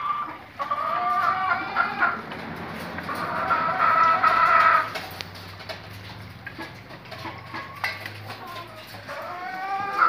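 Caged white laying hens calling: two long drawn-out calls about a second in and again around four seconds, then softer scattered clucking, and another rising call near the end.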